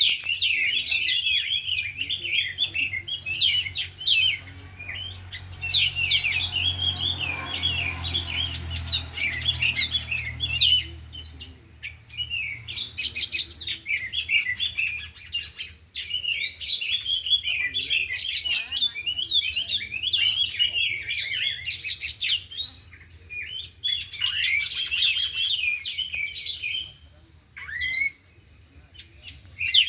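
Oriental magpie-robins singing: a dense, varied stream of fast chirps, trills and whistles, with mimicked phrases of other birds worked in, that thins briefly near the end.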